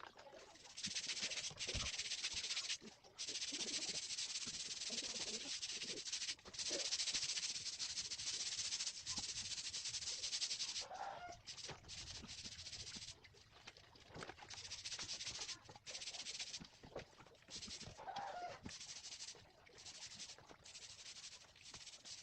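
A loud steady hiss that breaks off about halfway and then returns in short stretches, with a chicken calling twice, once about halfway and once near the three-quarter mark.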